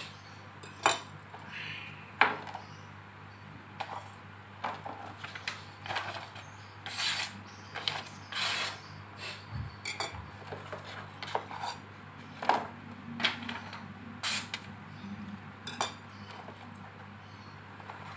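Banten knife blade slicing through a hand-held sheet of paper in a sharpness test: a run of short, sharp cutting and paper-rustling sounds at uneven intervals. A steady low hum runs underneath.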